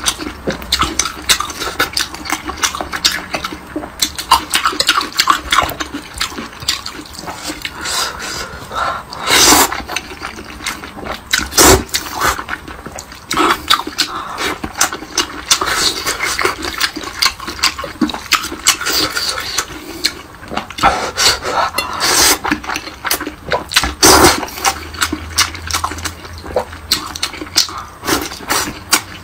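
Close-miked eating sounds: wet chewing, lip smacking and noodle slurping, a dense run of irregular clicks and squelches with a few louder, longer moments.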